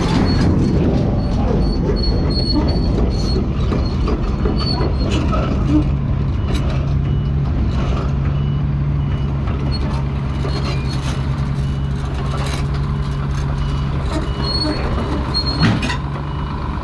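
Heavy diesel machinery running steadily while an excavator is loaded onto a lowboy trailer, with rows of short high warning beeps and a few knocks. There is one sharp, loud knock near the end.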